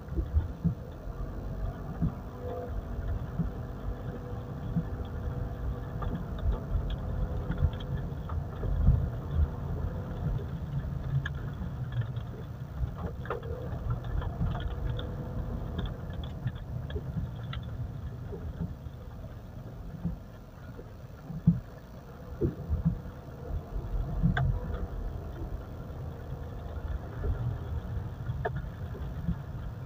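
Mitsubishi Pajero driving slowly: a low rumble with scattered bumps and knocks, and no brake squeal, which is gone after the brake work.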